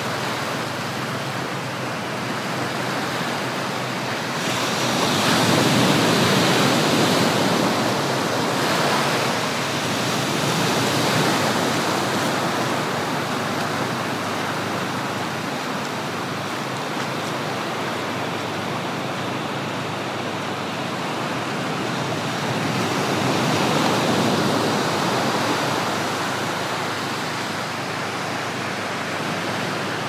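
Ocean surf breaking and washing up a sandy beach: a steady rushing wash that swells louder as waves break, most clearly about five to eight seconds in and again near the end.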